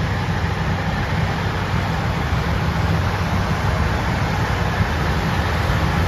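Heavy farm machinery's diesel engine running steadily: a low, even rumble with a rushing noise over it.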